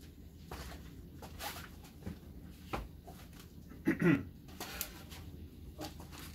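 Handling noises and light knocks, the loudest a short creak or scrape about four seconds in as a wooden chair is taken hold of and moved.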